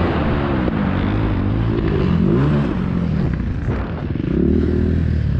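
KTM 350 EXC-F's four-stroke single-cylinder engine revving hard, its pitch rising and falling again and again as the throttle opens and closes. The engine note drops briefly about four seconds in, then picks up again.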